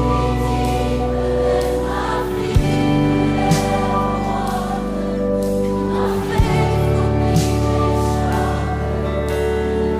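Slow contemporary Christian worship music: held chords over a bass line that moves about every four seconds, with a few soft hits.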